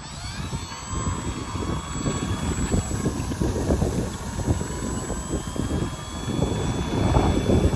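Electric motor and propeller of an RC 3D aerobatic plane (VisionAire) whining as it taxis on the ground, its pitch sliding up and down with the throttle at first, then steadier. Heavy wind buffeting on the microphone runs underneath.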